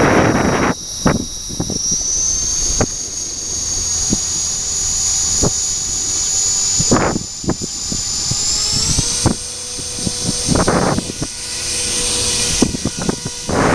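Radio-controlled model helicopter in flight, its motor and rotor head giving a high-pitched whine that rises in pitch about two seconds in and again around nine seconds in. Gusts of strong wind buffet the microphone repeatedly.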